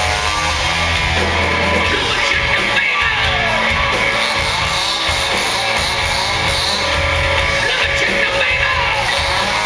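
Live hard rock band playing loud electric guitars and drums, with shouted singing.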